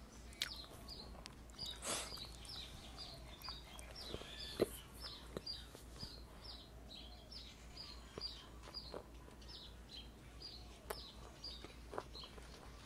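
A small bird chirping steadily, a short falling chirp two or three times a second, with a few faint clicks and a brief rustle as food is handled.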